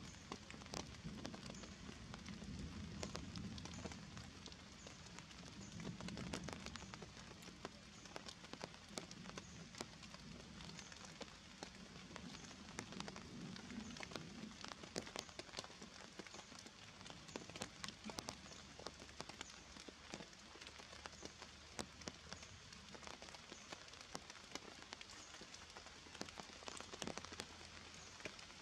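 Raindrops falling on leaves and the forest floor: many scattered small ticks over a faint, steady hiss. A low rumble underneath fades out about halfway through.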